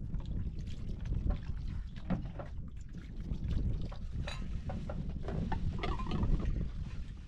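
Water poured from a plastic jerrycan over plates being washed by hand, with short clinks and knocks of the dishes. Wind rumbles on the microphone.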